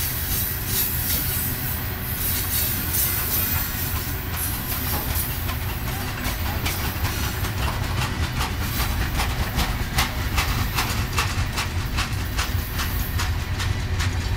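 Freight cars loaded with waste containers rolling past in a CSX train: a steady low rumble with the wheels clicking over the rail joints, the clicks coming thick and fast from about six seconds in.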